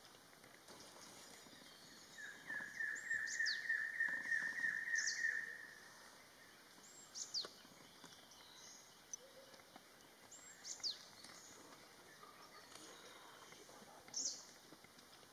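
Wild birds calling: from about two seconds in, a quick run of repeated chirping notes, about four a second, lasts roughly three and a half seconds; short, high, downward-sliding whistles come every few seconds over a faint steady outdoor background.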